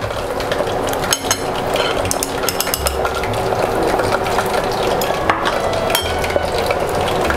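Hot oil crackling and sizzling in a fondue bourguignonne pot as pieces of meat fry on skewer forks, with a steady stream of small pops.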